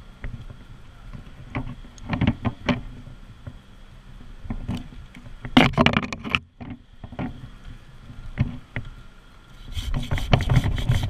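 Small top-handle chainsaw, an Echo CS-271T, idling steadily with sharp knocks and clacks of climbing gear and wood over it. The loudest knocks come in a cluster about halfway through, and near the end comes a louder, denser run of rapid strokes.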